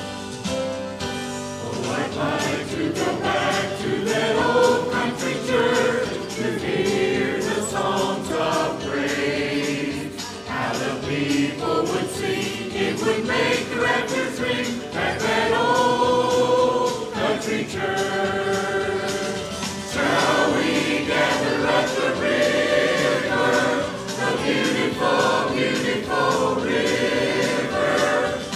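Church choir singing a gospel song with instrumental accompaniment; the voices come in about two seconds in, after a short instrumental lead-in.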